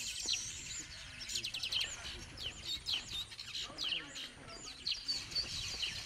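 Weaver birds chattering at their nesting colony: many overlapping high chirps and quick twittering calls, thick and continuous.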